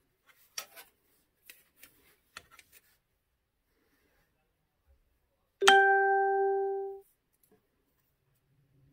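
Faint light clicks of a steel ruler being shifted on a foam block and tabletop, then, just past halfway, a single loud chime tone with one clear pitch that holds for over a second and cuts off abruptly.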